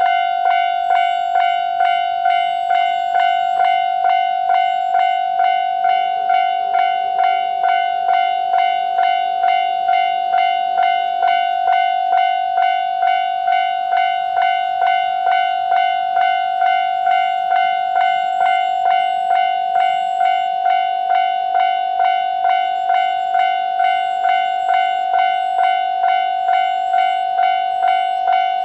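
Japanese railway level-crossing alarm bell ringing at a steady, even rhythm of about two strokes a second, warning of an approaching train. It starts suddenly at the beginning.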